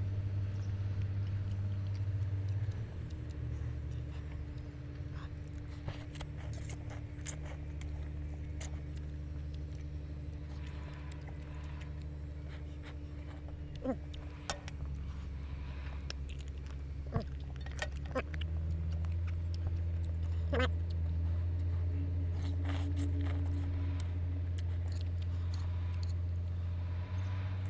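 Metal fork and ladle clinking and scraping against a steel wok of seblak while eating, in scattered sharp clinks, over a steady low hum.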